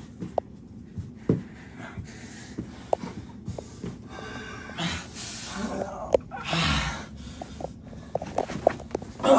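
Wrestlers grappling: heavy breathing and breathy exertion noises, with scattered light knocks and scuffs of bodies moving.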